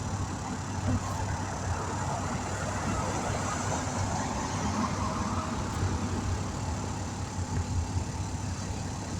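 A vehicle engine idling steadily with a low hum.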